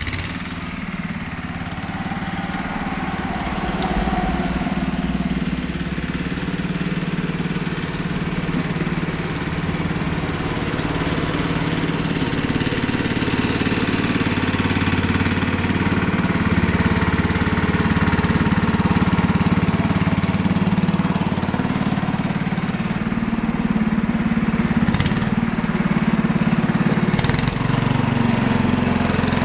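Sears Suburban 12 garden tractor's Tecumseh single-cylinder engine running steadily while the tractor pushes snow with its front blade, growing louder as it comes up close. A few short clatters near the end.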